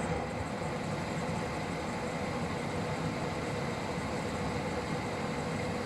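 Swegon Casa W80 heat-recovery ventilation unit running on its fan motors: a steady rush of air with a faint steady tone. The motor hum is largely gone after dirt was cleaned off the fan impeller blades, which is judged a very good result.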